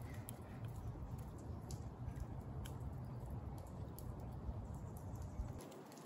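Faint outdoor quiet: a low wind rumble on the microphone, with scattered light taps of bare feet on wet asphalt. The rumble drops away near the end.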